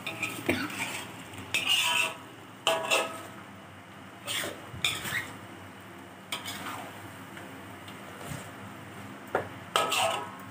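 A spatula scraping and clinking against a metal wok as chicken is stirred slowly through thick curry paste, in irregular strokes about a second apart, some with a brief metallic ring. The curry is being fried down until dry, with little sizzle.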